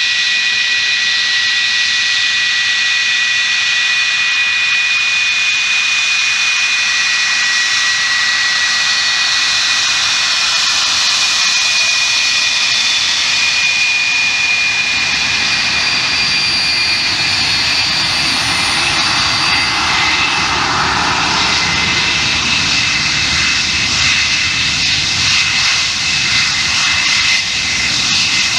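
Rolls-Royce Avon turbojets of two taxiing English Electric Lightnings: a steady high-pitched whine with several whistling tones. A deeper rumble builds from about halfway through as the lead jet comes close.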